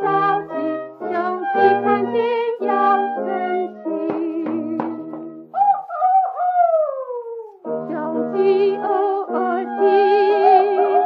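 A 1935 gramophone record of a woman singing a Chinese children's song about a crowing rooster, with instrumental accompaniment. Near the middle a single long swoop falls in pitch before the melody picks up again.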